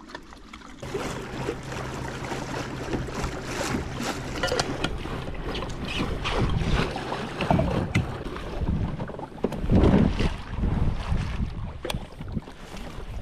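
Wind buffeting the microphone over water noise from a kayak on the water, with a steady low hum through roughly the first half.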